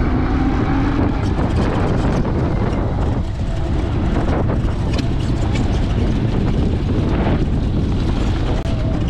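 Outrider Coyote electric 4WD ATV on the move off-road, with steady wind rushing over the microphone and a few light knocks from the ride.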